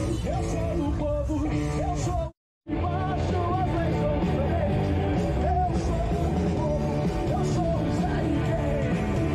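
Rock music with a singing voice, cutting out for a moment a little over two seconds in and then carrying on.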